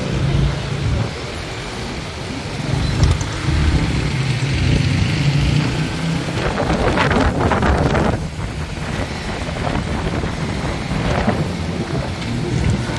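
Riding on a motorcycle: the engine running steadily under heavy wind buffeting on the microphone, with a louder rush of noise a little past halfway.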